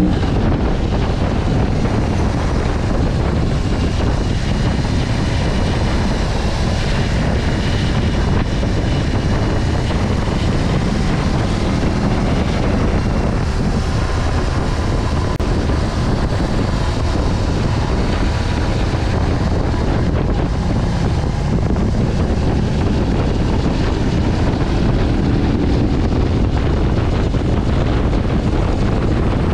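Wind buffeting the GoPro's built-in microphone at road speed on a BMW R18 motorcycle, a steady low rumble with the bike's 1800 cc boxer twin engine faint beneath it; a faint rise in engine pitch near the end.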